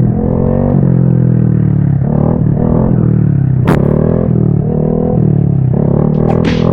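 Honda Grom's single-cylinder engine revving up and down in pitch during a wheelie run, over a steady music bass line. There is a sharp knock about three and a half seconds in.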